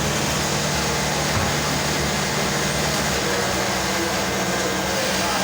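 Steady machine din of a garment factory floor, with industrial sewing machines running and a continuous low hum.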